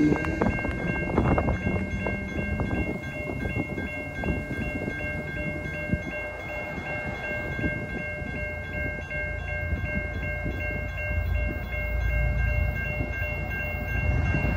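Distant diesel locomotive horn on an approaching BNSF freight train trailing off in the first second or two, then the low rumble of the approaching train growing louder near the end.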